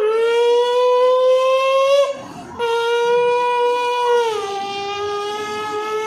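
A child's voice imitating a horn or siren: one long, loud, horn-like note held steady, broken off briefly about two seconds in, then held again and dipping slightly in pitch about four seconds in.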